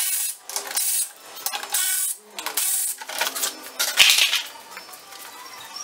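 Handheld cordless power tool run in a string of short bursts while backing out the bolts that hold the splash shield and brackets to the car's underside. It stops after about four seconds, with a sharp knock about four seconds in.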